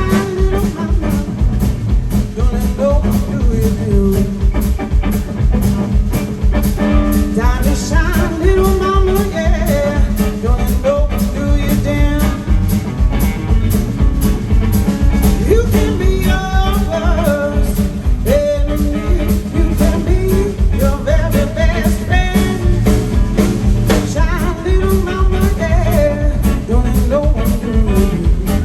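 Live blues band playing: drum kit and bass keeping a steady beat under a lead melody that slides up and down in pitch.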